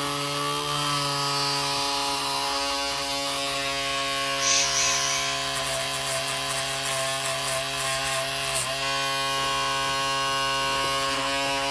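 Small battery-powered hobby motor of a homemade coffee mixer running steadily at constant speed, a high whir with one brief stutter about nine seconds in.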